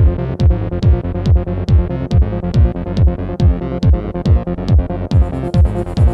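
Electronic trance music: a steady kick drum about two and a half beats a second under sustained synth chords and high ticks, with a bright high hiss layer coming in about five seconds in.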